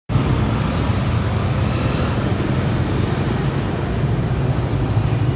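Steady street traffic noise, a continuous low hum of passing engines.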